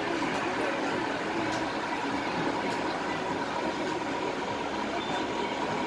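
Glass-bottom boat's engine running, heard from inside the hull as a steady, even drone with a thin steady whine above it.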